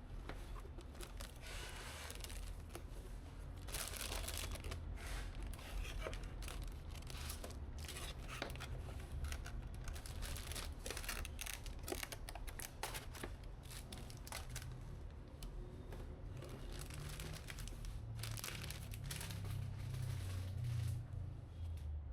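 PC parts packaging being handled: plastic and cardboard rustling and crinkling, with many small irregular clicks and snaps, over a steady low hum.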